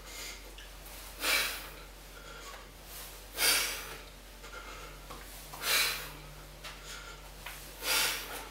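A man breathing out hard in short bursts, four of them about two seconds apart: effort breaths, one with each rep of hanging oblique knee-tuck crunches.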